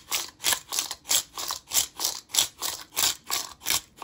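Plastic pepper grinder (Kotányi four-pepper mix) being twisted back and forth, grinding peppercorns in quick rhythmic crunching strokes, about four a second.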